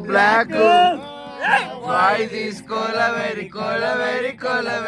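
A man singing a melodic song in long, held phrases, with music behind the voice.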